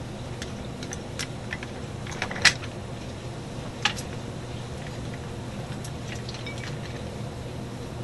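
Small metal hand tools clicking and clinking as they are handled and set down, with a sharp click about two and a half seconds in and another near four seconds.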